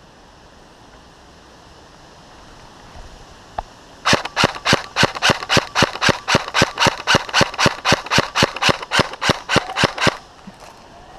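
Airsoft gun firing a steady string of single shots, about four a second for some six seconds, after one lone shot just before.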